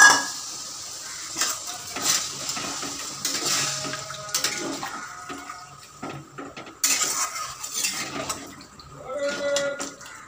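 Metal spatula scraping and knocking against a metal kadai while stirring a thick potato and paneer curry, with irregular clinks and scrapes and a loud metal clank at the very start.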